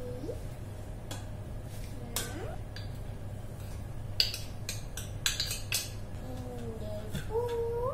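Metal spoon clinking against a stainless steel mixing pot and a bowl while ingredients are spooned into the batter: one sharp clink about four seconds in, then a quick run of clinks around five to six seconds.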